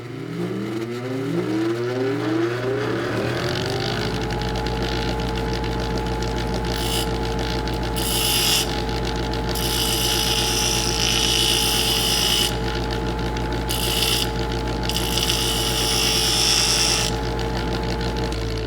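An electric grinder starts up, its motor whine rising to full speed over about four seconds, then runs steadily. Several stretches of harsh, high grinding come over it as the wheel is put to the work. The whine begins to fall near the end as the motor winds down.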